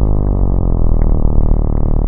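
Remix music holding one low, sustained note rich in harmonics, made from a pitched sample, its pitch sagging slightly near the start.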